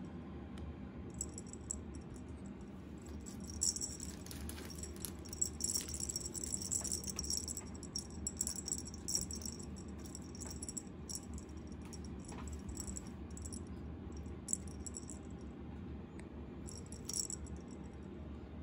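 Small jingling rattle from a feather wand cat toy, coming in irregular bursts as the toy is waved and batted at, with a few soft taps of paws.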